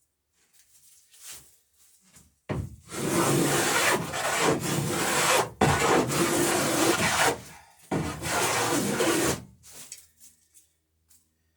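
A hand tool worked along the edge of a wooden boat plank in three long strokes, each about two seconds, cutting the bevel that the next plank will land on.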